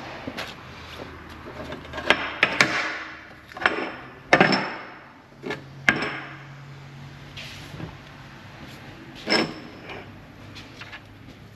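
Metal parts being handled in a machine shop: a string of separate clanks and knocks, some ringing briefly, over a low steady hum.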